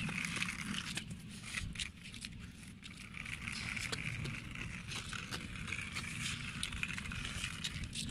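Battery-powered toy RC jeep driving over gritty dirt: its small motor whirring in uneven spells, with the wheels crackling and clicking over the grit.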